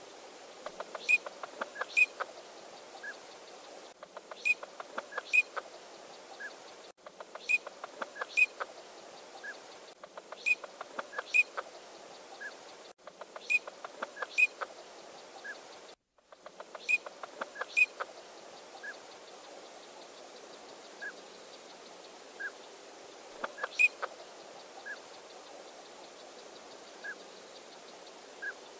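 Eurasian teal calling: short, high, whistled notes every second or two, with little clusters of quick ringing 'krik' notes every few seconds.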